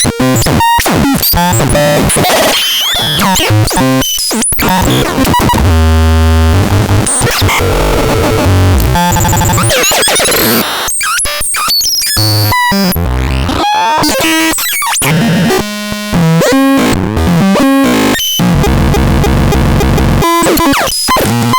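Harsh, chaotic electronic noise from the SAROLT sound device: buzzing tones that jump and sweep in pitch, broken by sudden glitchy cut-outs, with a deep low buzz around six seconds in and again near the end.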